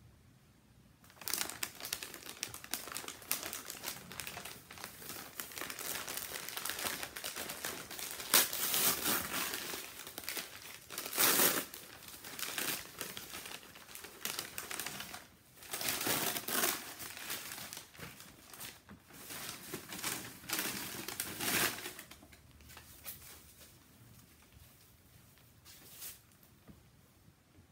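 Paper wrapping being crinkled, crumpled and pulled open by hand as a doll is unwrapped. The rustling starts about a second in, comes in louder handfuls of crackling, and stops a few seconds before the end.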